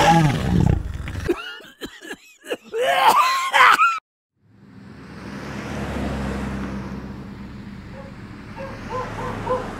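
Voice-like calls with pitch sliding up and down, stopping suddenly about four seconds in. After a short silence a rushing noise swells and slowly fades over a low steady hum.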